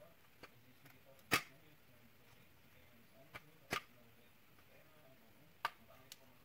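Sharp, separate snaps of the vacuum cleaner's plastic housing being cut or broken away to clear space inside. There are about six of them at uneven intervals, the loudest a little over a second in.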